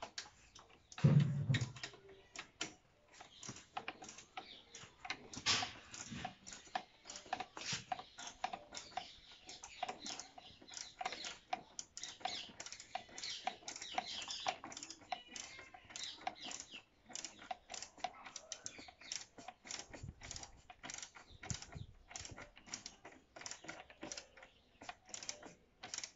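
Small socket ratchet wrench clicking in quick runs, stroke after stroke, as the mounting bolts of a motorcycle radiator guard are tightened. A louder dull thump comes about a second in.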